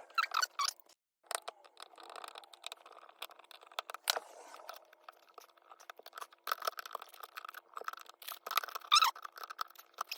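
Box cutter cutting and scraping insulation off heavy 6-gauge wire: irregular short scrapes, crunches and clicks, with a few louder scrapes near the end.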